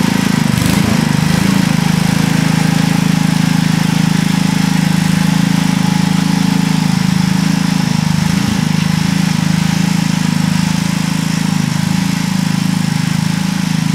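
Sears ST16 garden tractor's engine running steadily as the tractor pulls a plow through garden soil.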